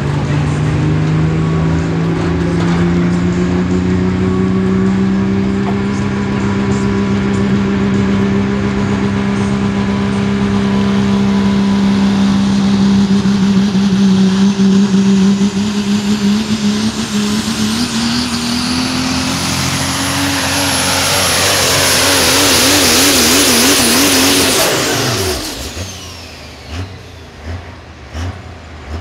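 Super stock diesel Dodge pickup pulling a sled at full throttle: its multi-turbocharged diesel runs loud and hard, its note climbing slowly, with a high turbo whistle rising through the second half. The engine note wobbles rapidly for a few seconds, then cuts off sharply about 25 seconds in as the pull ends.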